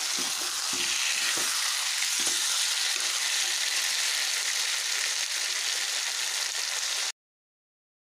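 Chicken pieces frying in hot oil in a metal kadai, sizzling steadily, with a metal spatula scraping and knocking against the pan during the first couple of seconds as the pieces are stirred. The sound cuts off abruptly near the end.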